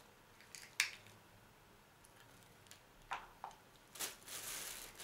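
A few faint, crisp snaps of fresh green bean pods being trimmed by hand, then, about four seconds in, a plastic bag rustling.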